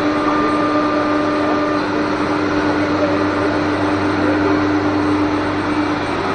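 CNC router running with a steady rush of air and a steady whine that stops just before the end.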